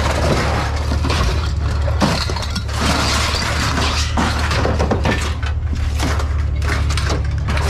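Scrap metal clattering and clanking in many irregular crashes as pieces are tossed onto a scrap pile, over a steady low hum.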